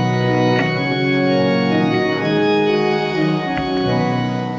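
Organ playing the introduction to the opening hymn, in held chords that move from one to the next.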